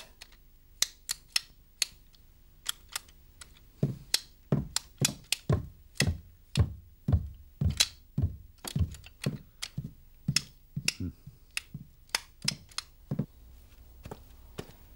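Percussion music of sharp clicks and low struck tones whose pitch drops after each stroke, starting about a second in, coming thick and fast through the middle and thinning out near the end.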